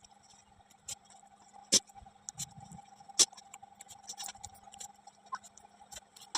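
Eating from a plate: scattered small clicks and taps of food and fingers against the plate, with two sharper clicks, one just under two seconds in and one a little after three seconds, over a faint steady hum.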